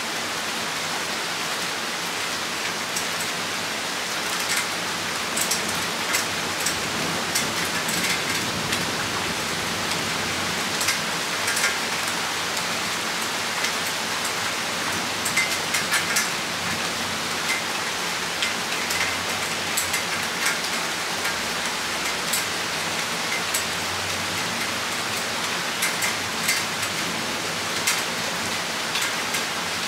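Rain shower falling steadily, with frequent sharp drops striking close by.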